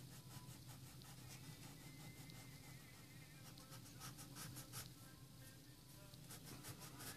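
Faint, quick back-and-forth strokes of a paper blending stump rubbing colored pencil into paper, in runs of several strokes, the clearest about four seconds in and again near the end.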